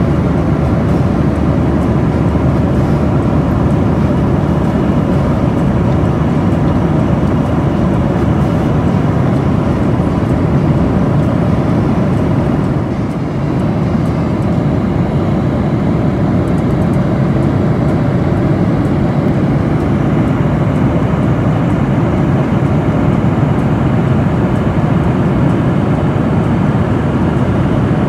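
Steady cabin noise of a jet airliner in flight, the low rumble of the engines and rushing air heard from a window seat. It dips for a moment about halfway through.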